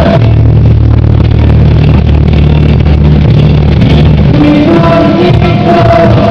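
Loud recorded paso doble music for a formation dance routine: a sustained deep bass passage, with the higher melody coming back in at about four and a half seconds.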